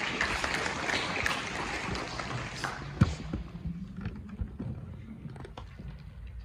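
An audience applauding, the clapping thinning out after about three seconds. A single sharp thud about three seconds in is the loudest sound.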